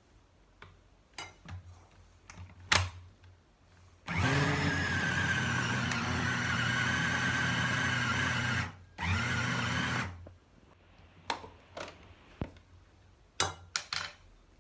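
Electric kitchen grinder running steadily for about four and a half seconds, stopping briefly, then pulsed once more for about a second, grinding dried figs with olive oil, honey and herbs into a paste. Light clicks and knocks come before and after the runs.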